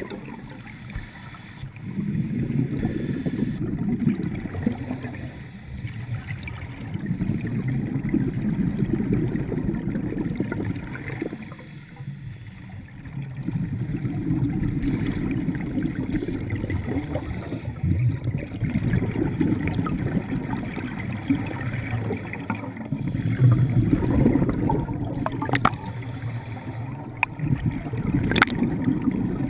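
Scuba divers breathing through regulators underwater: exhaled air bubbling out in rumbling surges every few seconds, with quieter gaps between breaths.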